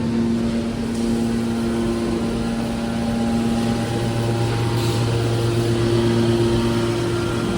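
Hydraulic drum baler press running: a steady hum from its motor and hydraulic pump, with a few steady low tones.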